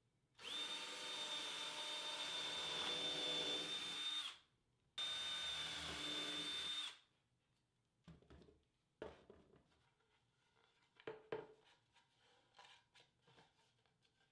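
Power drill with a brad point bit boring handle holes through wooden drawer fronts. There are two runs with a steady motor whine, the first about four seconds and the second about two, followed by a few light knocks and clicks.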